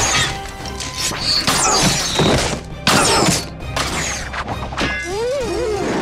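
A rapid series of designed bow-shot sound effects: an arrow loosed again and again, each a sharp snap with a short whoosh, played one after another over background music.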